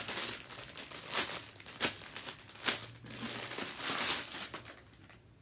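Clear plastic wrapping crinkling and rustling as it is handled and opened, with a few sharp crackles; the rustling dies down near the end.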